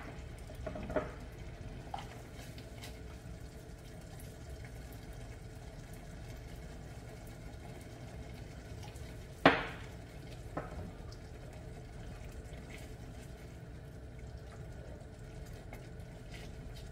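A cream and broth sauce simmering in a stainless sauté pan on a gas burner, a steady low bubbling hiss. A few sharp taps of a utensil against the pan stand out, the loudest about halfway through.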